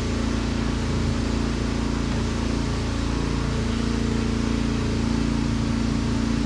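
An electric plug-in machine running steadily with a constant hum over a loud, even whir.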